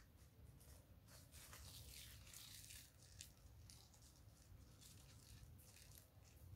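Near silence with faint, irregular rustling and scratching, busiest about two to three seconds in.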